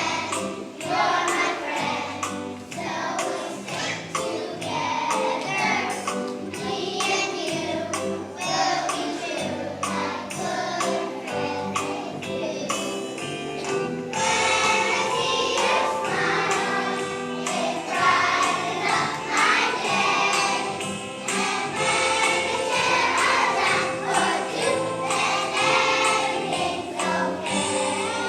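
A children's choir singing a song over an accompaniment with a steady beat.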